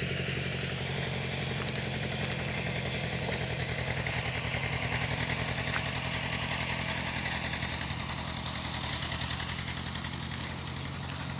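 Band sawmill running with a steady low engine drone while the blade cuts through a log, the cutting hiss swelling through the middle and easing off near the end.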